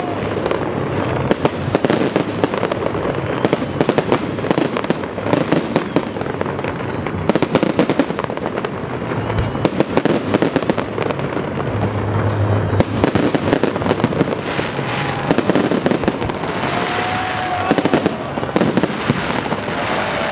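Aerial fireworks display: a dense, continuous barrage of bangs and crackling from shells bursting overhead.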